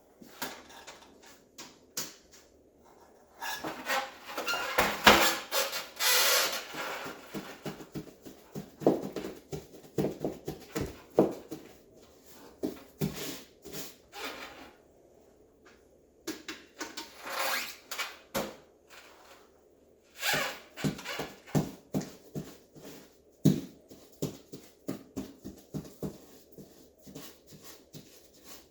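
Handling noises while setting up to paint: scattered knocks and clicks, with several bursts of rustling as a drop sheet is spread and a stepladder is moved into place.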